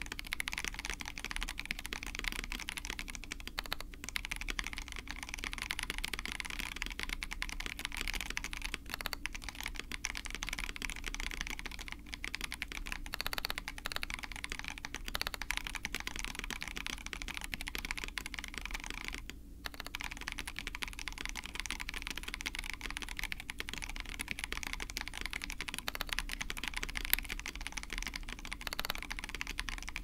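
Fast, continuous typing on a KBD67 Lite R2 custom mechanical keyboard with unlubed Salmon tactile switches and GMK Peaches n Cream keycaps, giving a dense, pretty high-pitched clacking. There is a brief pause about two-thirds of the way through.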